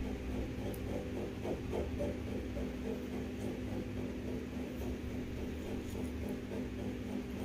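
Steady low hum in a small room, with no distinct event standing out.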